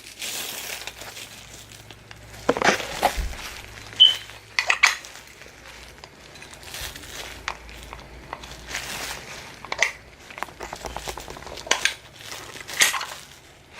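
Plastic packaging crinkling and metal parts of a Momo steering-wheel quick release kit clinking as they are unpacked and handled, in scattered clicks and rustles with a brief metallic ring about four seconds in.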